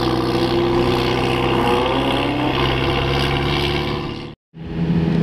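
Sports car engines driving away up a hill, a steady engine note with a slight rise in pitch midway. The sound fades out and drops to silence about four seconds in, then a car engine is heard running steadily again just after.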